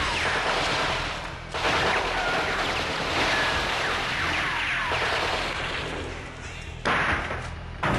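Sustained MG42 machine-gun fire from several guns, with a brief break about one and a half seconds in. It eases a little near the end before two sharp, loud bursts.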